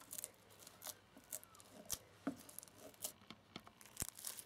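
Foam-bead slime being scraped up with a plastic spatula and kneaded by hand: faint, scattered sticky clicks and crackles.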